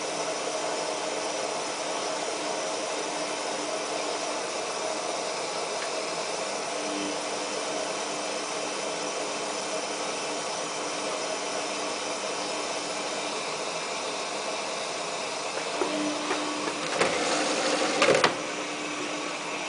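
Samsung WF8804RPA front-loading washing machine filling with water in service mode: a steady rush of water with a low hum through the inlet valve. Louder rattling builds near the end, with a sharp knock.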